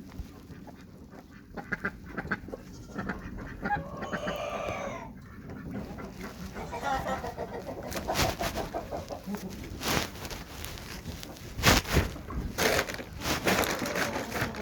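Chickens clucking, with a longer drawn-out call about four seconds in, and several sharp knocks in the second half.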